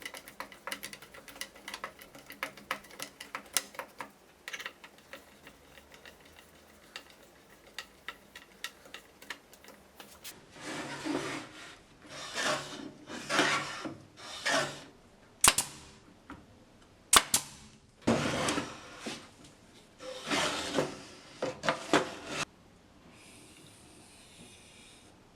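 Hand work on wood: a run of small clicks and taps, then about a dozen rubbing or scraping strokes of half a second to a second each, with two sharp clicks among them.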